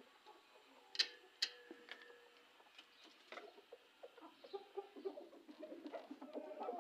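Two sharp clicks of a cage door being unlatched about a second in, then chickens clucking softly from about halfway through.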